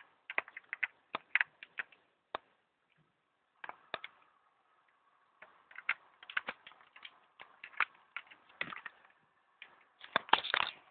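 Hard plastic parts of a Dino Megazord toy clicking and clattering as its cannons are fitted on. The clicks come irregularly, with a pause of a couple of seconds partway through and a dense run of clicks near the end.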